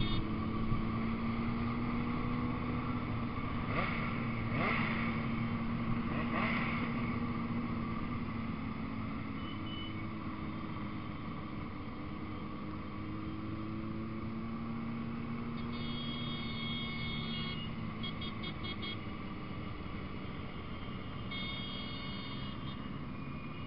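Motorcycle engines running steadily as a column of sport bikes rides along at an even pace, heard from one of the bikes in the group.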